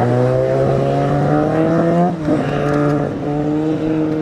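Honda RVF750 V4 racing motorcycle accelerating hard, its engine pitch climbing, dropping sharply at an upshift about two seconds in, then climbing again in the next gear.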